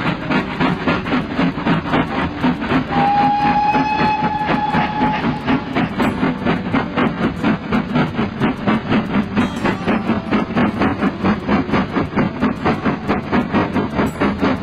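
Steam locomotive running with a steady, fast rhythmic beat. A whistle is blown once, about three seconds in, and held for about two seconds.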